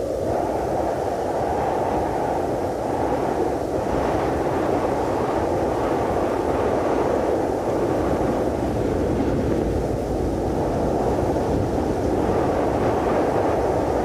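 Cold wind sound effect: a steady, low rushing of wind that swells and eases slowly, with no gusting whistle.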